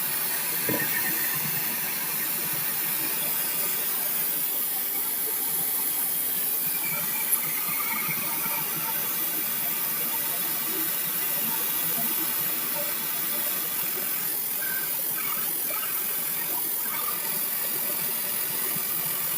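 Oxy-acetylene torch flame hissing steadily, with one faint click about seven seconds in.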